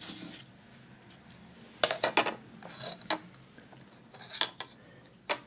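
A metal ruler is handled against the tablet, making a few sharp clicks and clinks about two seconds in and again near the end. Short bursts of plastic wrapping crinkle in between.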